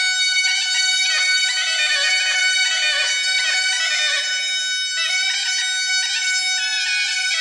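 Bagpipe music: steady drones held under a moving chanter melody.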